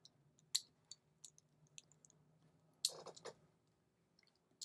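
Scattered light clicks and taps of small metal screws and a tool being handled during a padlock teardown, with a louder clatter about three seconds in.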